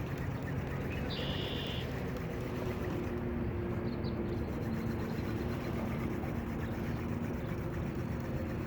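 A distant engine droning steadily over a constant rushing background. The engine's low hum sets in about two seconds in, and a brief high chirp comes about a second in.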